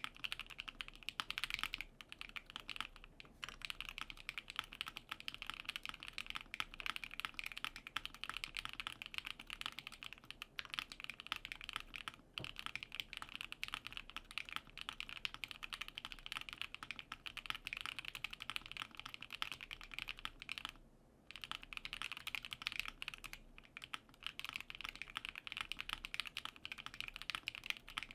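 Fast continuous typing on a plateless KBD67 Lite R1 mechanical keyboard with lubed and filmed Alpaca linear switches: a dense stream of keystrokes with a few short breaks.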